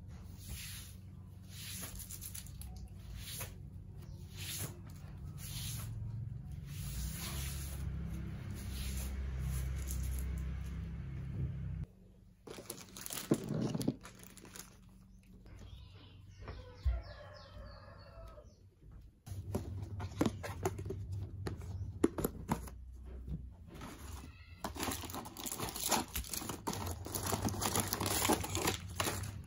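A fibre broom sweeping a wooden floor in repeated strokes. After a quieter stretch, plastic crinkles and clicks densely as medicine blister packs and wrappers are sorted out of a plastic tub.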